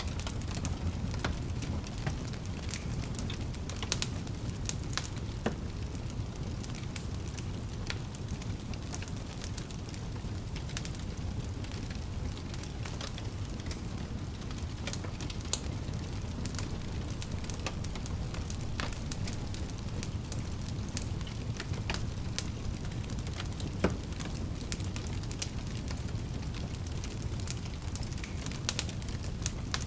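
Wood fire crackling in a fireplace: a steady low rumble of flames with frequent sharp snaps and pops, one of them louder about four-fifths of the way through.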